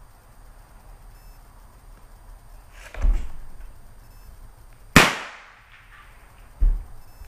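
Pellet gun firing a dry cleaning pellet: one sharp crack with a ringing tail about five seconds in, the loudest sound. Shorter thumps of the gun being handled come about two seconds before it and again a second or so after.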